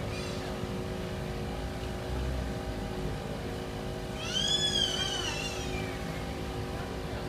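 Steady low street hum with a constant motor-like drone underneath. About four seconds in, a high-pitched squeal rises and then falls, lasting about a second and a half.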